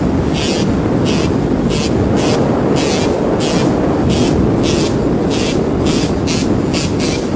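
Wind buffeting the microphone on a moving vehicle over a steady low rumble of engine and road noise, with bursts of hiss two or three times a second.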